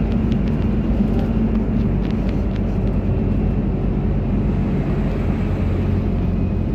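Inside a PAZ-320402-04 city bus under way: the engine's steady low drone mixed with road noise, with a few light clicks in the first couple of seconds.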